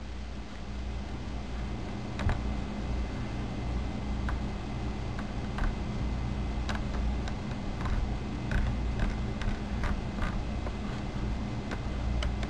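Irregular light clicks of typing on a computer keyboard, over a steady low hum.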